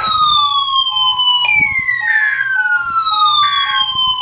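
Weather alert radios sounding their alarms for a Required Weekly Test. A siren-like tone falls steadily in pitch, jumps back up about a second and a half in and falls again, over a steady run of short beeps.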